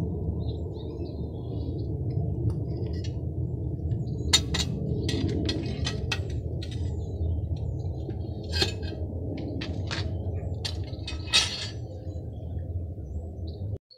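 Steady low rushing of a propane-fired Devil Forge furnace burner, with a few sharp metallic clinks of the tongs and crucible from about four seconds in.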